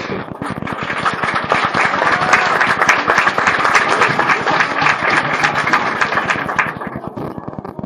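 Audience applauding: a dense mass of clapping that builds up about half a second in, holds loud, and dies away near the end.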